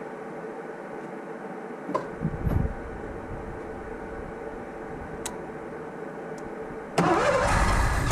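A 1984 Ford LTD Crown Victoria's V8 engine running steadily with an even hum. A few low thumps come about two seconds in, and a loud rushing burst lasts about a second and a half near the end.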